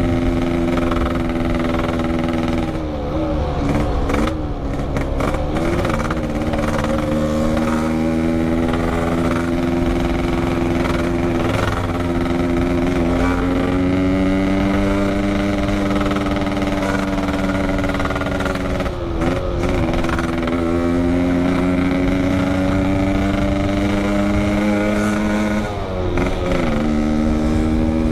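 Yamaha RX-King 135cc two-stroke single running under way through a loud 'packing power' aftermarket exhaust. Its pitch stays steady for long stretches and dips briefly then climbs back about three times, a few seconds in, around the middle and near the end.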